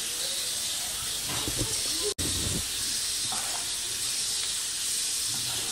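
Steady background hiss with a few faint, soft handling noises as a sandwich is handled in its paper wrapper, and one sharp click about two seconds in.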